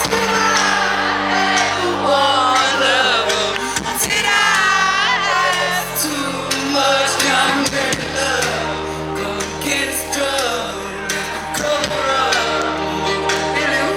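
A song with singing over held low bass notes that change every few seconds.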